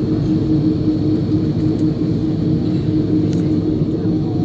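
Airbus A330 cabin while taxiing: a steady low rumble of the jet engines at taxi power and the rolling airframe, with a steady drone under it, heard from inside the cabin.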